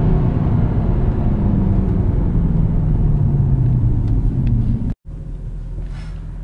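Mercedes C63 AMG's V8 heard from inside the cabin, its note falling steadily as the car slows. About five seconds in the sound drops out for an instant, then returns quieter and steady.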